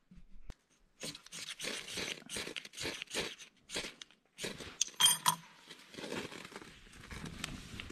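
Dry kindling and split firewood being handled to light a campfire: irregular crackling, scraping and snapping, with a brief metallic clink about five seconds in.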